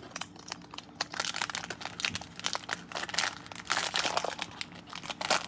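Plastic wrapper of a baseball card fat pack crinkling and tearing as it is ripped open and handled, a dense run of irregular crackles.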